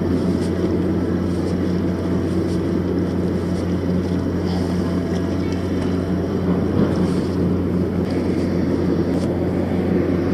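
Steady low mechanical drone from the docked cargo ship and port machinery across the harbour, under a constant rushing noise.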